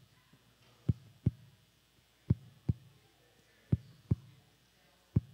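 Low, sharp thumps in pairs about half a second apart, one pair every second and a half, in a steady heartbeat-like rhythm.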